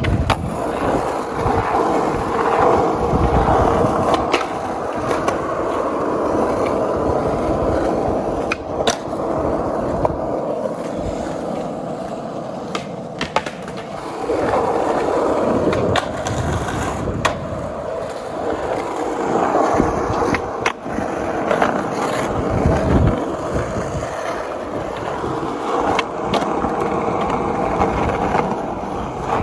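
Skateboard wheels rolling steadily over pavement, with several sharp clacks of the board hitting the ground through the ride.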